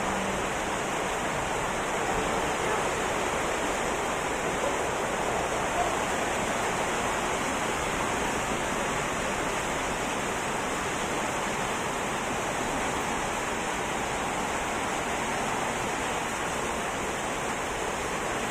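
Heavy rain pouring down steadily, an even hiss with no break.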